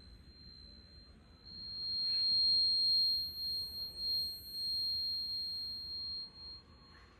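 A high, steady sine tone from a sound-art installation's score, swelling up about a second and a half in, wavering in loudness through the middle, and dropping away shortly before the end.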